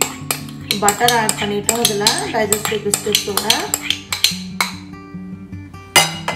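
Kitchenware clinking and knocking: a glass bowl and a spoon tapping against a ceramic mixing bowl as melted butter is poured onto crushed biscuit crumbs. A metal spoon strikes the bowl loudly about six seconds in as stirring begins. Acoustic guitar music plays underneath.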